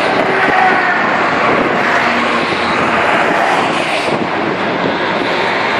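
Motorway traffic passing below, military convoy vehicles and civilian cars: a steady drone of engines and tyres, swelling slightly about two and four seconds in as an eight-wheeled armoured vehicle goes by.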